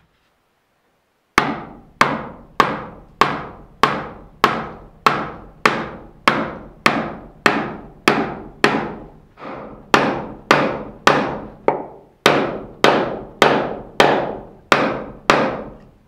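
Mallet striking a hand-made wooden peg (trenail), driving it into a timber-frame joint. About 25 steady, evenly spaced blows, a little under two a second, each ringing briefly in the wood.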